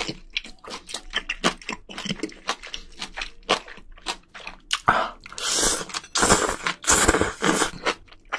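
Close-miked eating: wet chewing and lip-smacking clicks for about five seconds, then three long, loud slurps of noodles from a spicy seafood stew.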